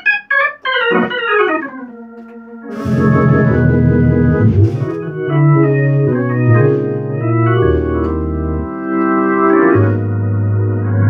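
Hammond XK organ played in gospel 'chops' style: short detached chord stabs and a fast descending run at first, then full held chords over a moving bass line from about three seconds in.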